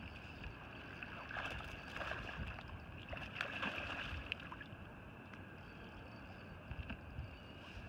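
Hooked Skamania steelhead splashing at the lake surface: a cluster of irregular splashes from about one to four seconds in, over small waves lapping.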